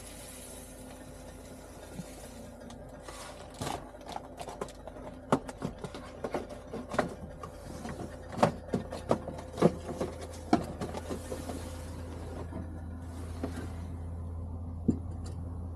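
Scattered clinks, knocks and rattles of tea things being handled in a truck cab: a small cup, a drawer under the bunk and a kettle on a small gas stove. The sharpest knocks come between about five and eleven seconds in, over a steady low hum that grows louder about eight seconds in.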